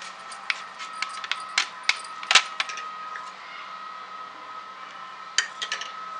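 Plastic spoon clicking and scraping against a glass bowl while stirring semolina (suji) batter freshly mixed with Eno fruit salt. The taps are irregular, the loudest about two and a half seconds in, with a quick cluster around five seconds in, over a faint steady high whine.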